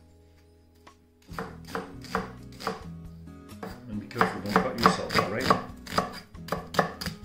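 Chef's knife chopping onion on a wooden cutting board: a run of sharp knife strokes striking the board, starting about a second in and coming faster in the middle.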